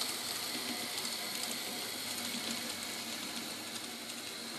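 A 1979-vintage N scale Union Pacific gas turbine model locomotive running on the track: a steady, faint mechanical whirring and ratcheting of its small motor, gears and wheels.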